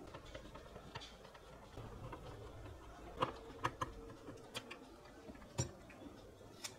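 Screwdriver working small screws out of the plastic battery bracket inside a Bluetooth speaker's housing: scattered light clicks and ticks, with a handful of sharper clicks in the second half.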